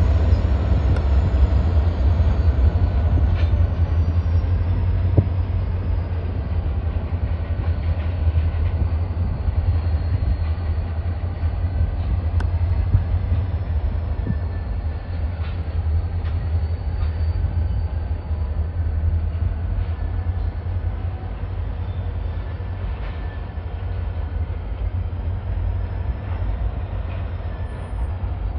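Two diesel yard locomotives running as they shove cuts of freight cars, a steady low rumble with a few faint clanks scattered through.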